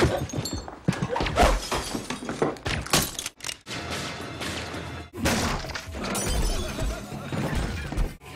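Edited action-film soundtrack: a fast run of crashes and hits over background music, broken by several abrupt cuts.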